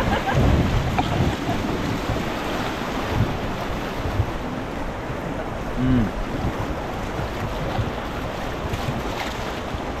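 Whitewater of the Beas River rushing steadily around an inflatable raft, with wind on the microphone and paddles splashing in the water.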